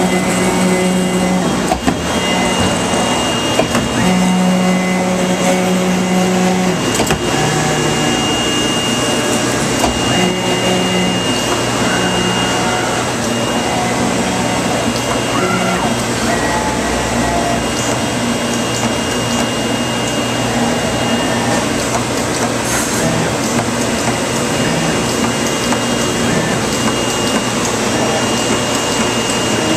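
A 2013 Autometrix Advantage plotter/cutter running as it marks and cuts sailcloth with its rotary wheel. Its moving head sets off low pitched hums that start and stop every second or so and shift in pitch as the head changes course. Under them runs a steady rushing machine noise.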